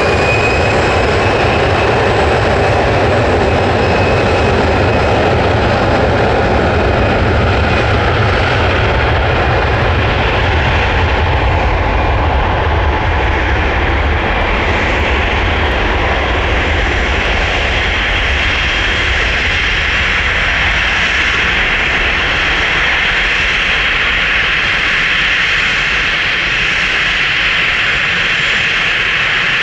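Jet airliner engines running at high power close by: a loud steady rush with a high whine that levels off at the start, and a low rumble that fades away over the second half.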